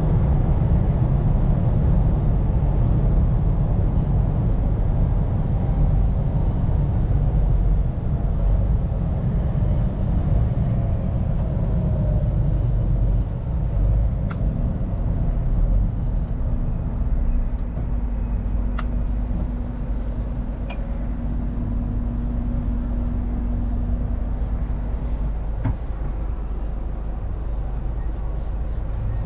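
Scania P410 truck's diesel engine and road noise heard from inside the cab while driving, a steady low rumble that eases slightly after the first few seconds. A faint steady whine sits over it for several seconds past the middle, and there are a few faint clicks.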